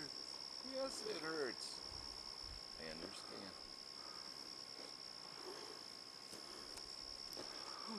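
A cricket trilling steadily on one high pitch.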